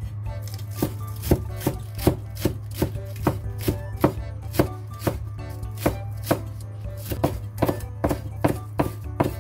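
Chinese cleaver chopping spring onions on a bamboo cutting board: a steady run of sharp knocks of the blade on the wood, about two to three chops a second, over a low steady hum.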